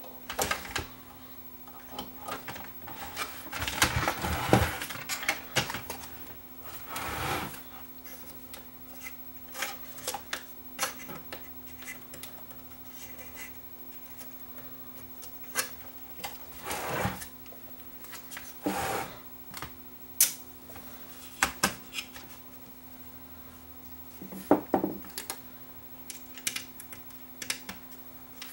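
Irregular clicks, knocks and rustles of hands handling a cassette deck and things on a workbench, some clicks sharp and close together like keys, over a faint steady hum.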